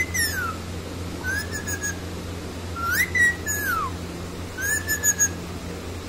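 A pet green parakeet whistling: about four short whistles, some rising and then falling away, others held almost level.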